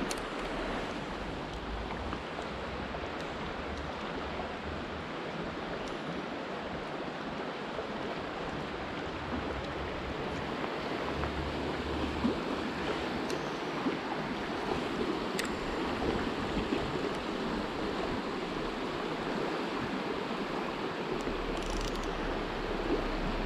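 A small river in flood running fast over shallow riffles: a steady rush of water.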